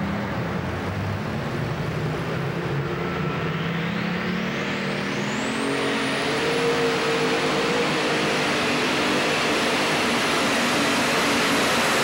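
Methanol-burning light super stock pulling tractor engine revving up and then running flat out under load. A high turbocharger whistle climbs over a couple of seconds, from about four seconds in, and then holds at a steady high pitch.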